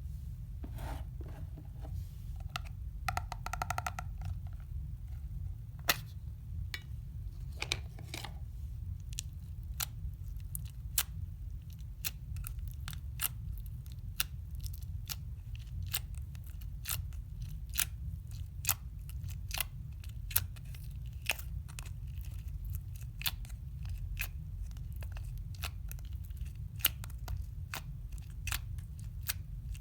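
Slime being worked by hand, giving a string of sharp clicks and snaps that come more often as it goes on, with a brief squeak about three seconds in, over a steady low hum.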